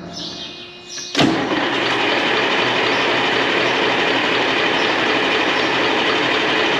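A semi truck's diesel engine starts about a second in and then runs steadily, its first run after an oil and filter change, pushing fresh oil through the new filters.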